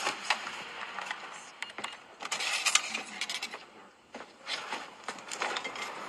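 Light clinks and clatter of a dinner plate and cutlery being handled, in two flurries of quick clicks about two and about five seconds in.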